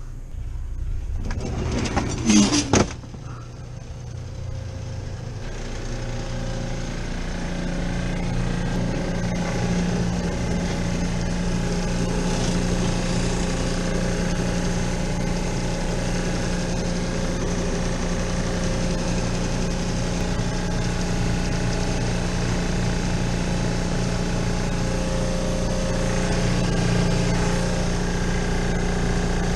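Steady mechanical hum of HVAC equipment running, building up over the first several seconds, after a brief loud clatter about two seconds in.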